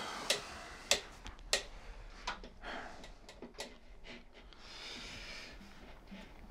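A few light, sharp clicks and taps in a small quiet room, then a breathy exhale lasting about a second, around five seconds in.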